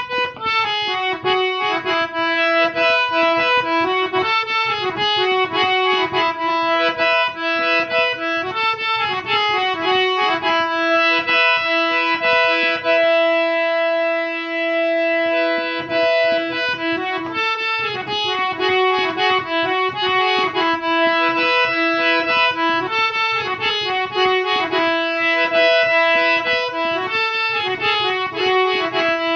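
Santali banam phone ringtone: an instrumental melody of sustained, reedy notes, with one long held note about halfway through.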